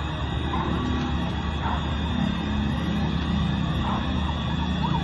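Emergency vehicle sirens wailing faintly over a steady low background rumble, with a quicker up-and-down siren pattern near the end.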